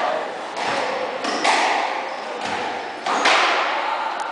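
Squash rally: the ball struck by rackets and hitting the court walls, about five sharp hits in just over four seconds, each followed by a short echo.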